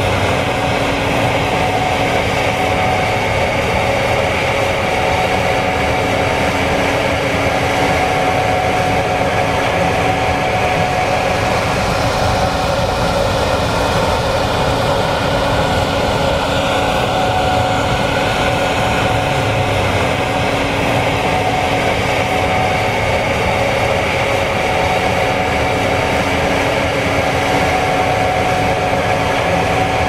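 Gleaner S96 combine running steadily under load while harvesting soybeans: an even mechanical drone with several steady whining tones held through.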